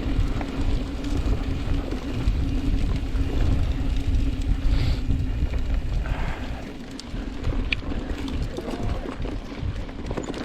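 Mountain bike riding a dirt trail: wind buffeting the rider's camera microphone over the rumble of the tyres and rattle of the bike. A steady low hum fades out a little past halfway.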